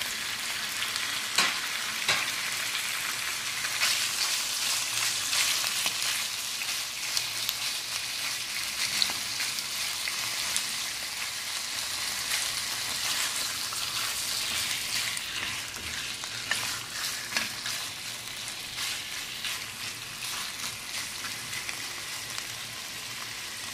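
Raw chicken pieces with garlic and ginger sizzling in hot oil in a non-stick wok, stirred with a silicone spatula, with occasional sharp taps and scrapes of the spatula on the pan.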